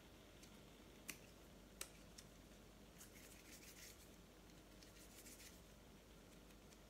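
Near silence: faint room tone with two small clicks about a second in, then soft rustling as fingers roll and shape plasticine.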